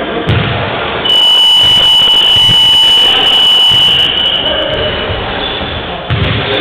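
Basketball scoreboard buzzer sounding one long high-pitched tone for about four seconds, starting about a second in and fading out. A few low thumps sound under it.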